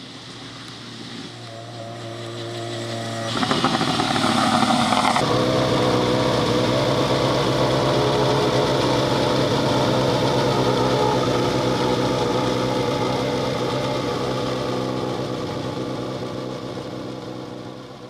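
Rally car engine growing louder over the first few seconds and loudest briefly about three to five seconds in. It then holds a steady note that slowly fades.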